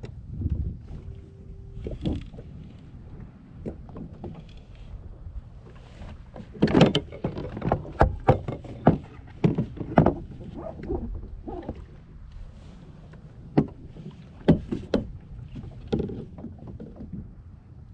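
Knocks and clunks on a Hobie Outback fishing kayak out on the water over a low rumble of water against the hull. A dense run of sharp knocks comes from about a third of the way in to past the middle, with a few more later.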